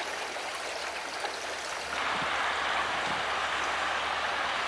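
Stream of running water rushing steadily; the sound gets louder and brighter about two seconds in.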